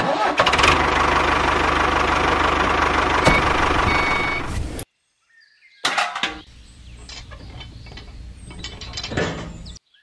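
Tractor-style engine running steadily, cutting off about five seconds in, then running again more quietly with light ticks and stopping just before the end.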